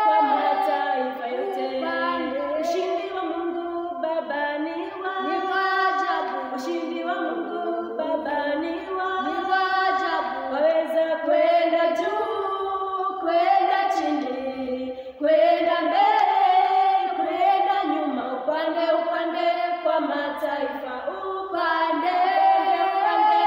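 Voices singing a gospel song unaccompanied.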